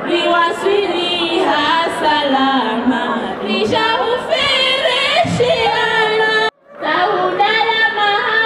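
Women singing into a microphone, with a wavering, sustained melody. The sound drops out for a moment about six and a half seconds in, then the singing goes on.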